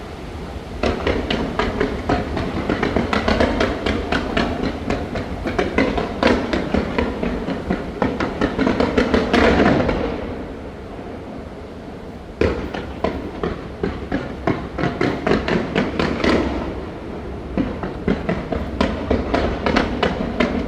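Fireworks going off in rapid, dense volleys of bangs and crackles. The volleys ease off about ten seconds in, then start again sharply a couple of seconds later.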